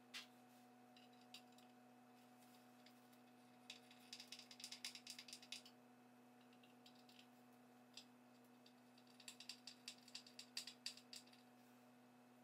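Small flat-pack furniture hardware clicking and rattling as the pieces are picked through by hand, in two spells of quick light clicks: one about four seconds in, another about nine seconds in. A faint steady hum lies underneath.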